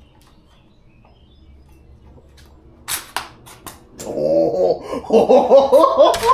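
Four sharp clicks about three seconds in, from the AR pistol being handled to clear a round stuck at the chamber, then a wordless voice from about four seconds in.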